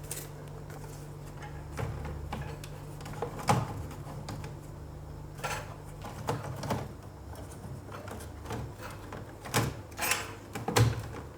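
Scattered small clicks and knocks of hands handling the parts of an opened laptop, the sharpest near the middle and a cluster near the end, over a low hum that fades out about halfway through.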